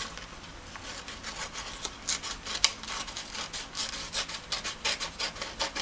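Sheets of letter-size printer paper rustling and crinkling as they are handled and separated, in an irregular run of crisp crackles that grows busier about a second and a half in.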